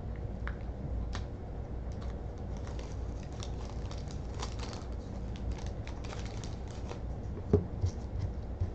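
Wax paper wrapper of a 1989 Score football card pack crinkling and tearing as it is peeled open by hand, in many small irregular rustles. Two short soft knocks come near the end.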